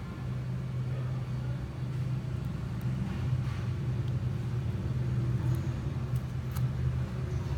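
Steady low mechanical rumble and hum, with a few faint scrapes and clicks from a small knife peeling sweet-potato skin.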